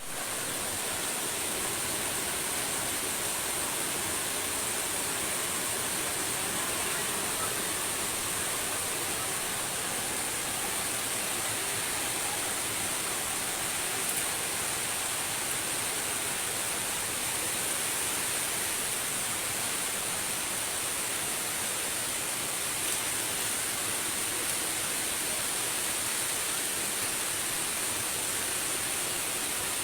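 Rushing water running steadily, an even hiss with no breaks, brightest high up.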